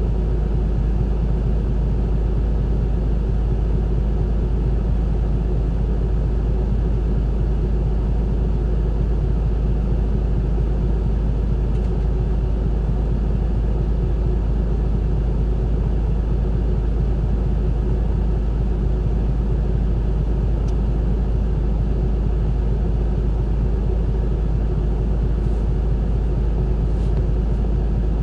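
Isuzu Erga city bus heard from on board: its diesel engine running with a steady low rumble and the hum of the moving bus, unchanging in level.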